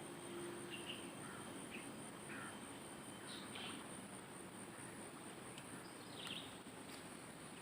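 Riverside ambience: a steady, high-pitched insect drone with scattered short bird chirps over a faint hiss.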